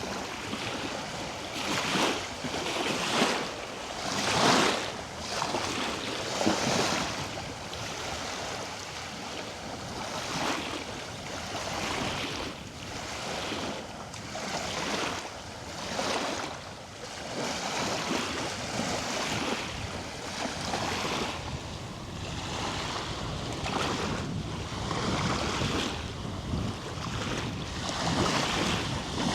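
Ocean surf: waves breaking and washing in a continuous hiss that swells and ebbs every second or two, louder in the first few swells.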